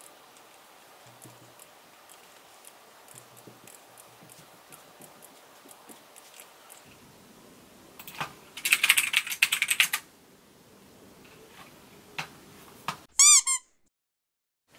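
Faint clicks of a computer mouse, then about eight seconds in a two-second run of rapid typing on a computer keyboard, followed by a few more clicks. Near the end, a brief chiming sting with falling tones.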